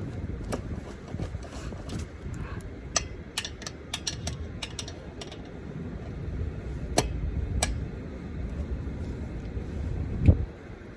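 Scattered metallic clicks and knocks of tools being worked on the van's lug nuts over a low rumble, with a heavier thump near the end.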